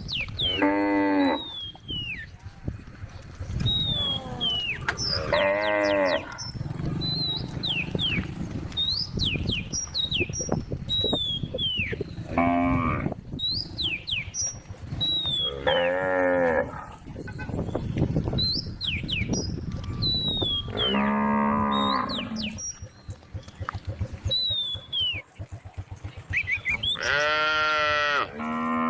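Cows mooing: about six long, drawn-out moos spaced a few seconds apart, with two close together near the end.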